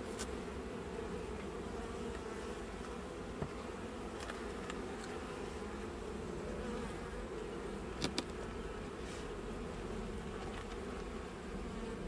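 Honeybee colony buzzing steadily over an open hive, a low, even hum, with a few faint clicks, two close together about eight seconds in.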